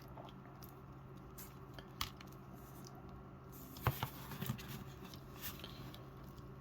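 Light clicks and taps of a plastic action figure being handled and posed, with a cluster of louder clicks about four seconds in, over a steady low hum.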